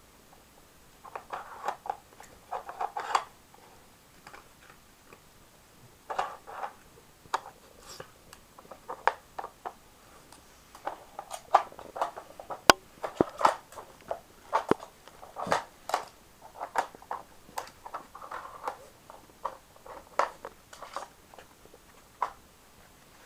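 A Cavalier King Charles Spaniel nosing and pawing at a plastic treat-puzzle game, lifting off its bones and sliding its covers to get at hidden treats. Irregular bunches of plastic clicks, knocks and scuffles, with one sharp click about halfway through.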